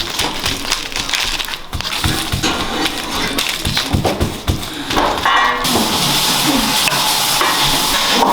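Knife knocking and crunching through raw chicken drumsticks on a cutting board as they are lollipopped, in a string of irregular knocks. A little after halfway a steady hiss sets in and runs on.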